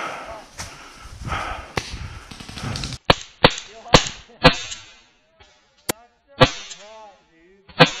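Shots from a paintball marker: from about three seconds in, seven sharp cracks, four fast ones about half a second apart, then three more spaced out. Before them there is busy rustling and movement noise with a couple of sharp pops.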